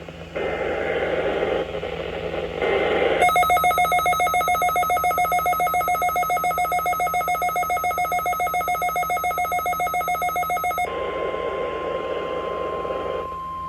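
NOAA Weather Radio weekly test of its warning alarm: about three seconds of buzzy, static-like noise in short pieces, then a loud, rapidly pulsing electronic alarm tone for about seven and a half seconds. After that comes a faint steady tone under hiss.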